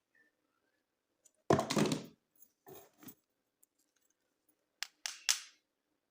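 Toy unboxing handling noises: a loud rustling scrape with a thump about a second and a half in, a shorter rustle around three seconds, then a couple of sharp clicks and a swish near the end.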